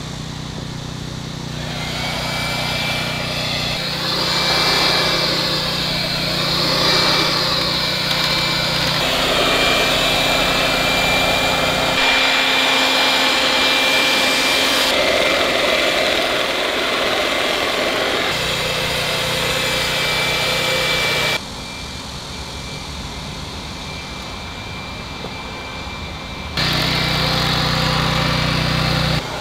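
A small gasoline portable generator runs steadily while a handheld electric sewing machine whines as it stitches the edges of two artificial-turf rolls together. The sound jumps in loudness abruptly a few times.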